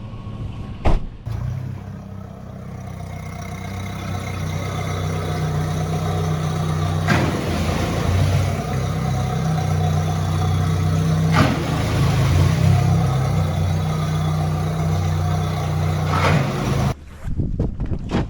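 A sharp knock about a second in, then a boat motor running, growing louder as it gets under way and holding steady before it cuts off suddenly near the end.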